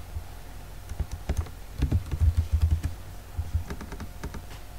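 Typing on a computer keyboard: irregular key clicks, with a quick run of keystrokes from about two to three seconds in.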